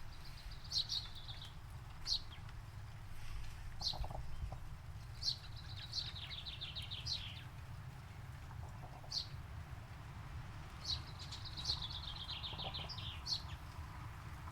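Forest birds singing: short, sharp high calls every second or two, and three rapid trills of quick notes, the longest lasting about two seconds, over a steady low hum.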